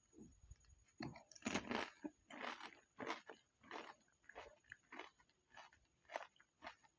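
Pani puri being eaten up close: crisp puri shells crunched and chewed in a run of bites from about a second in, one or two a second.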